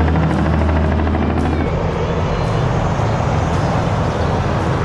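Heavy-haul semi trucks passing on the highway: a steady low diesel engine drone that gives way, a little under two seconds in, to a broader rush of engine and tyre noise.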